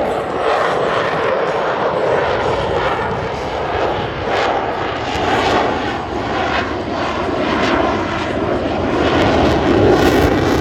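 Propeller airplane's piston engines droning as it flies a pass, swelling and easing, loudest near the end.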